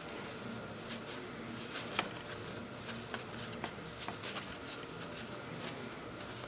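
Fibre stuffing being pushed by hand into a cotton fabric toy body: soft rustling with scattered light crackles, the sharpest about two seconds in.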